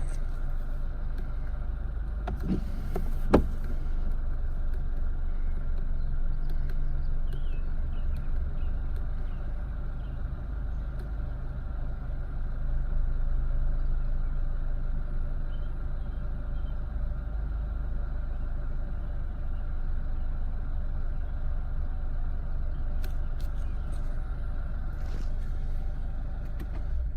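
Renault Megane's 1.6 16-valve K4M four-cylinder petrol engine idling steadily after a start, with a brief click about three seconds in.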